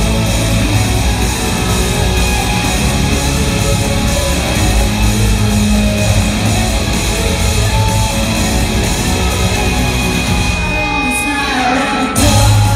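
Live rock band playing at full volume, with electric guitars, bass and drums. About ten and a half seconds in, the bass and drums drop out for a moment under a falling run, then the full band crashes back in near the end.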